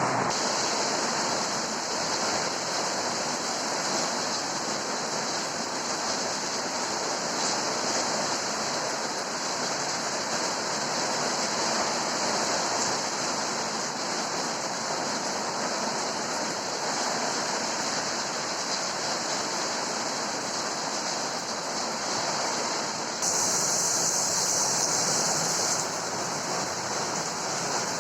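Heavy rain with strong wind in a storm, a steady rushing noise, growing louder for a few seconds near the end.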